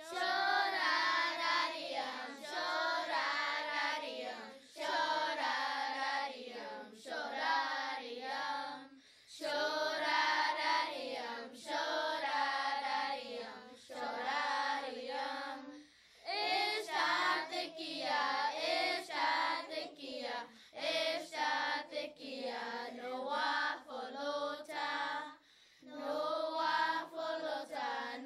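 A group of children singing a Choctaw-language song, in sung phrases with short breaks between them.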